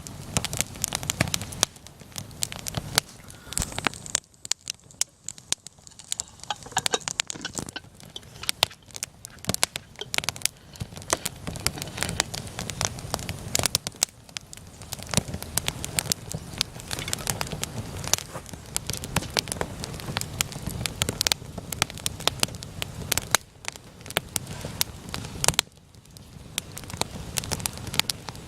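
Wood fire crackling, a dense, irregular run of sharp pops and snaps with two brief quieter lulls.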